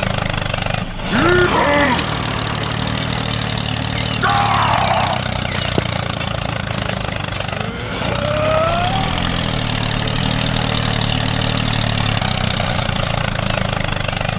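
Small engine of a DIY mini tractor running steadily at idle. Three short high calls sound over it, about a second in, around four seconds in and around eight seconds in.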